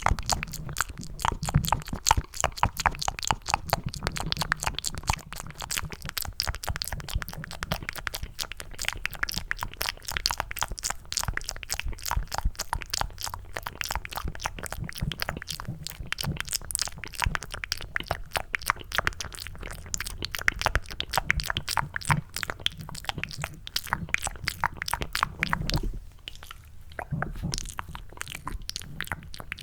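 Close-up cupped mouth sounds: a dense run of rapid wet clicks and smacks, made to sound like chewing mac and cheese, with a brief lull near the end.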